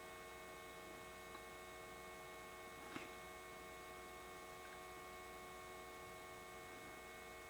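Cooling fans of a FlashForge Adventurer 3 3D printer running, a faint steady hum with several tones, the fans sounding not quite right, one of them louder than it should be. A faint click about three seconds in.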